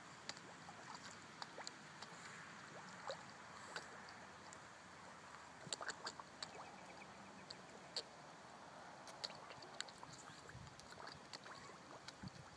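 Quiet lakeside ambience with faint scattered clicks and small splashes from fish feeding at the surface close to the bank.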